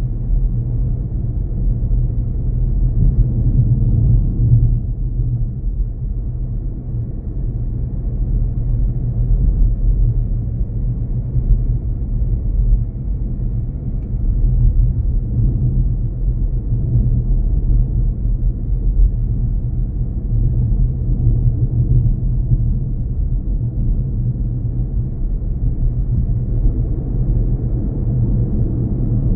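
Steady low rumble of a car on the move, heard from inside the cabin: engine and tyre noise on the road surface, with no sudden sounds.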